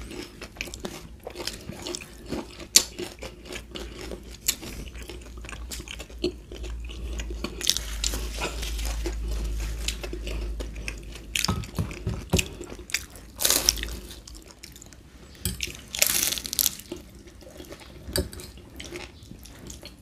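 Close-up eating sounds: crisp bites and chewing of fried chicken spring rolls (lumpiang shanghai), with wet mouth clicks between them and a few louder crunches in the second half.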